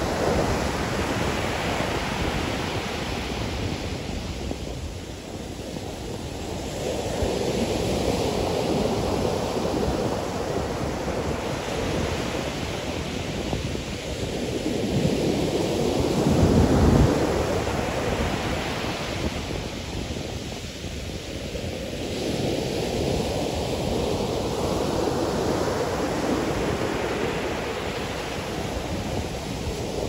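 Ocean surf: waves breaking and washing up the sand, the noise swelling and fading every several seconds, with the loudest crash about halfway through.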